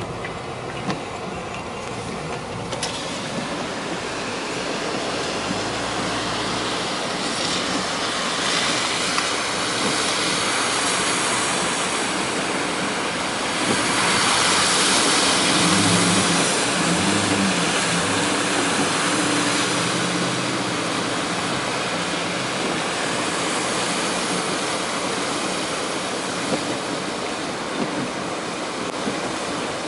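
Muddy floodwater rushing across a road while cars and trucks drive through it, tyres ploughing and splashing through the water. The noise swells to its loudest about halfway through, as a vehicle pushes through the flood with its engine audible under the splash.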